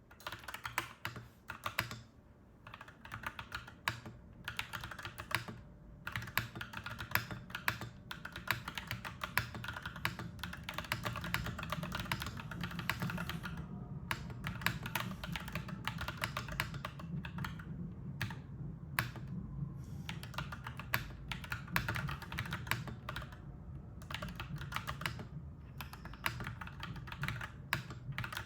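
Clacky mechanical keyboard being typed on in quick runs of keystrokes with short pauses. A low steady rumble underneath grows louder about six seconds in.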